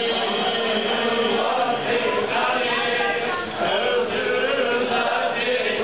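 Crowd of men chanting together in a Shia Ashura mourning chant, many voices at once.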